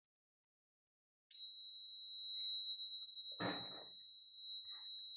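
A DIY fire alarm's small electronic buzzer switches on about a second in and sounds one steady, high-pitched tone, the alarm triggering. A brief thump about halfway through.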